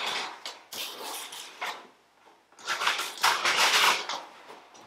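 Hands working at the top of a cardboard shipping box, making rustling and scraping cardboard sounds in two spells, the second louder.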